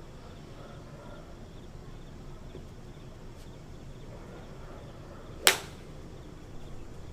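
A 3-wood striking a golf ball: a single sharp crack about five and a half seconds in.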